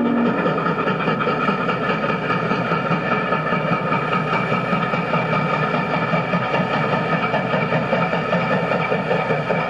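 Southern steam locomotive 2716 running across a trestle: a loud, steady mass of exhaust and running noise with a fast flutter through it.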